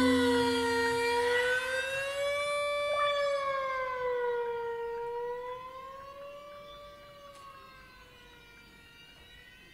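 A sustained electronic tone with overtones, its pitch slowly wavering up and down, while a low drone beneath it stops about a second and a half in; the tone then fades away gradually.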